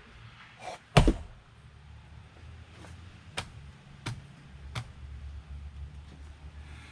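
Axe blow splitting a piece of firewood: one loud sharp strike about a second in, then three lighter wooden knocks less than a second apart.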